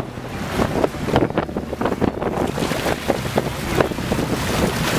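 Wind buffeting the microphone over sea water splashing alongside a fishing boat, in many short, irregular splashes.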